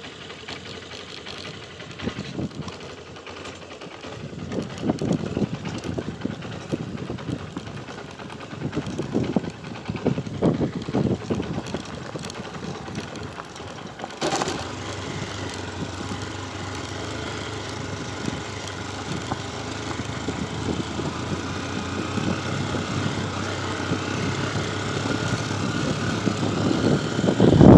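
Motorcycle engine running on a rough dirt-road descent. The first half is uneven, with irregular low surges. From about halfway the engine note steadies and slowly rises in pitch, growing louder near the end.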